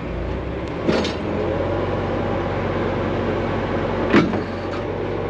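Heavy truck diesel engine idling steadily, with two brief sharper sounds, about a second in and again near four seconds, the second the loudest.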